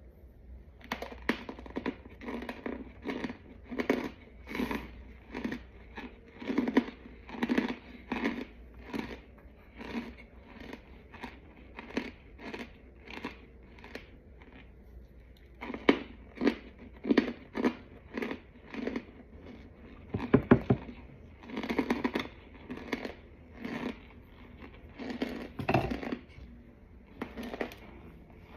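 A person chewing crunchy, chalky white chunks close to the microphone: steady crunches about twice a second, with a short pause about halfway through.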